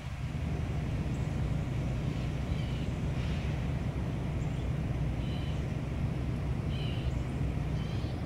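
Outdoor background: a steady low rumble, with short high bird chirps scattered through.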